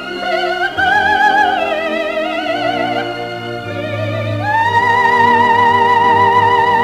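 Operatic soprano singing with orchestra, played from a 78 rpm record: a wide vibrato line that climbs about two-thirds of the way in to a long high note held over sustained orchestral chords.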